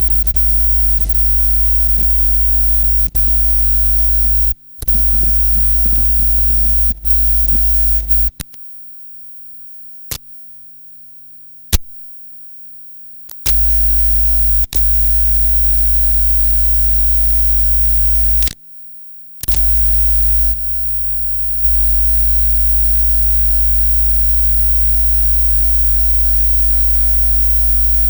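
Bad audio cable connection: a loud low mains hum with hiss that cuts out and snaps back again and again, with sharp clicks and crackles each time the plug makes and loses contact. The longest dropout lasts about five seconds in the first half.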